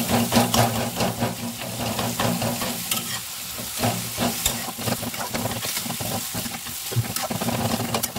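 Onion-tomato masala sizzling as it fries in a metal kadai, with a metal ladle stirring it and scraping against the pan again and again, over a steady low hum.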